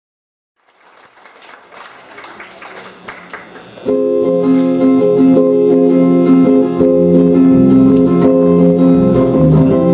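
Acoustic guitar strummed with an electric bass guitar playing along, an instrumental song opening that starts suddenly about four seconds in, after faint room noise fades up.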